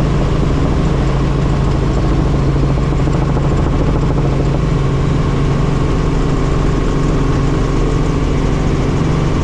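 Helicopter in flight: the steady drone of its rotor and turbine engine, a loud, unchanging low hum.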